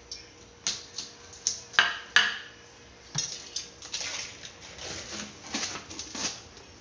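Kitchen clatter: a metal utensil and plastic cooking-oil bottles being handled and set down on the counter, in sharp knocks and clicks. The two loudest come about two seconds in, then a quicker run of lighter knocks follows.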